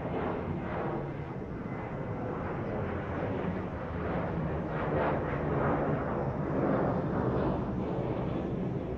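Jet aircraft passing overhead: a steady rushing jet noise with a slowly sweeping tone that swells to its loudest past the middle, then eases a little.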